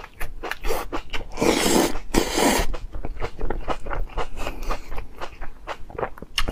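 Crisp crunching and chewing of baby corn, a run of short sharp bites and chews, with a longer rustling scrape about a second and a half in.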